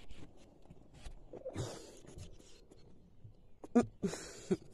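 Soft rustling and scratching of a hand moving over newborn puppies and the blanket in a cardboard box, with a few light clicks. Two brief high cries come near the end.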